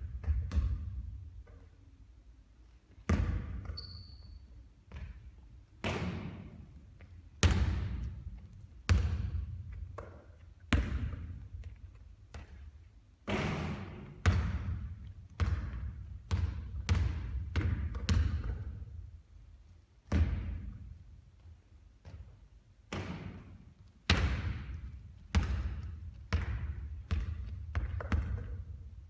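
Basketball bouncing again and again on a court during three-point shooting practice: sharp hits, each trailing off, in quick runs every second or two. A short high squeak sounds about four seconds in.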